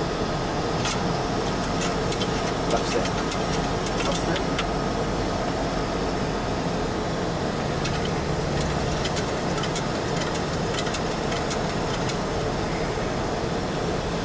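Single-seat Girabet autogyro's engine running steadily at low power under even wind and rolling noise as it rolls along the runway after touchdown, with scattered light clicks.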